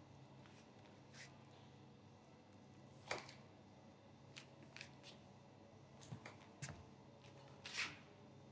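Near silence: room tone with a few faint, brief clicks and rustles, the loudest about three seconds in and near the end.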